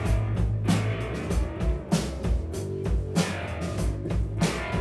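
Live rock band playing: electric guitars and bass guitar over a drum kit keeping a steady beat, with regular kick drum and cymbal hits.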